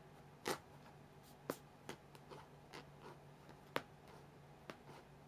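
An American Shorthair cat's claws scratching and picking at a quilted mattress cover: a string of short, irregular scratchy clicks, about one or two a second.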